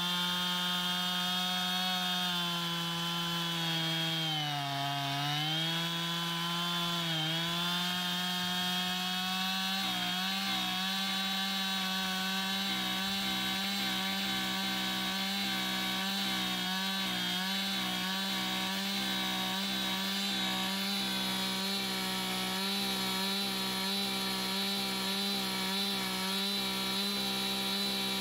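Husqvarna 445 two-stroke chainsaw running at full throttle, its chain cutting through a thick log. The engine pitch sags briefly under load a couple of times in the first several seconds, then holds steady.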